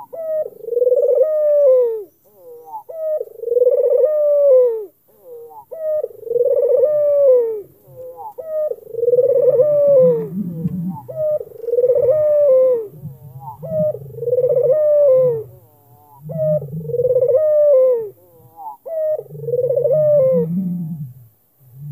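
A white (albino) Barbary dove (puter) cooing over and over: about nine coo phrases, roughly every two and a half seconds, each swelling and falling in pitch. From about nine seconds in, a lower, deeper sound runs beneath most of the coos.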